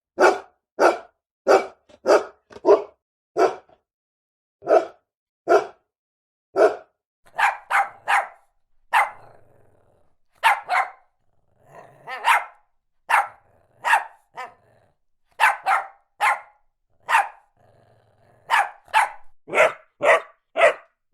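A dog barking repeatedly: around thirty short, sharp barks, some single and some in quick runs of two or three, with brief pauses between.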